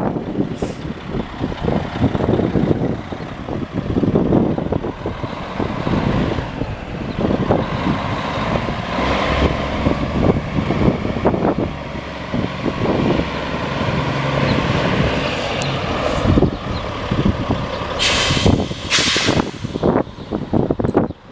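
Peterbilt 378 dump truck's diesel engine running as the truck drives across gravel, with tyre and gravel crunching. Near the end come two short bursts of air hissing from the air brakes.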